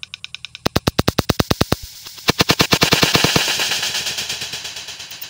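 A homemade pistol being fired: two quick bursts of rapid, evenly spaced cracks, about a dozen a second, the second burst louder, followed by a fading hiss.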